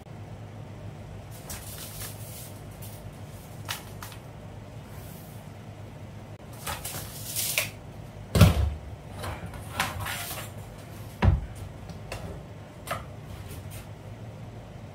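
Hand tools and a steel straightedge being picked up, handled and set down on a vinyl deco-tile floor: scattered clicks, rustles and clatters, with two heavier knocks about eight and eleven seconds in. A steady low hum runs underneath.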